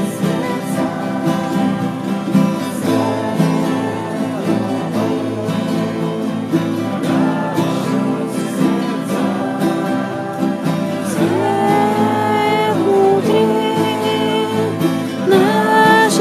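Band playing a song at rehearsal: acoustic guitar accompaniment with voices singing. The singing moves into longer held notes in the second half.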